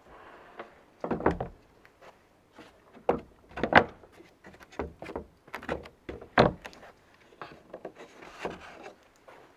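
Wooden door of a homebuilt smoker being handled and opened: a string of irregular wooden knocks and clunks from its latch and boards.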